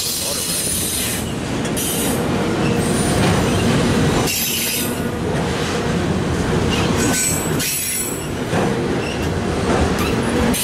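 Freight train's autorack cars and a boxcar rolling slowly past: a steady rumble of steel wheels on rail, with high-pitched wheel squeal that comes and goes several times.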